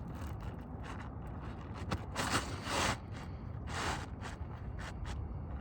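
Asphalt roofing shingle being slid back into place under the course above, scraping against the neighbouring shingles in several short rasping pushes, the longest about two to three seconds in.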